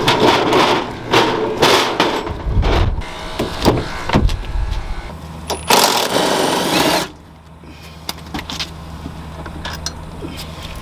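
Metal tools and sockets clattering in a tool-cart drawer, then a cordless impact driver hammering for about a second and a half as it breaks loose a car seat's floor bolts, after which it goes much quieter.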